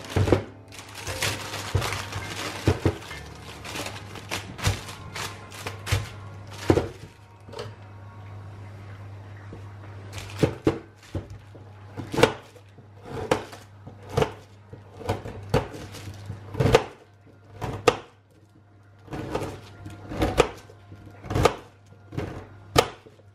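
Paper and plastic bag rustling as carrots are taken out. Then a knife chopping carrots on brown paper laid over a stainless-steel draining board: sharp knocks about once a second, some in quick pairs, over a steady low hum.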